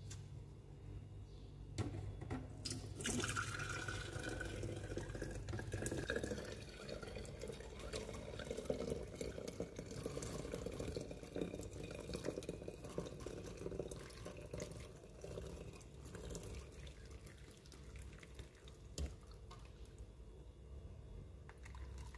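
Hot milky tea (chai karak) pouring from a pan through a stainless-steel mesh strainer into a thermos pot: a steady liquid splashing that begins about two seconds in, after a couple of knocks, and grows softer in the second half.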